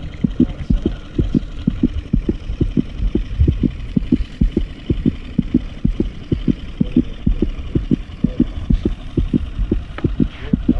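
Small outboard motor idling, a low even thumping at about four beats a second.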